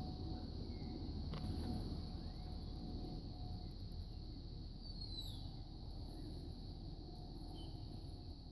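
Outdoor ambience: a steady low rumble with a single light click about a second and a half in and a few short, high, falling chirps around the middle.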